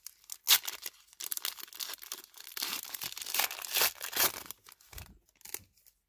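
Foil wrapper of a Panini Prizm football card pack being torn open and crinkled by hand: irregular crackling tears, the sharpest about half a second in and a dense run in the middle, thinning out near the end.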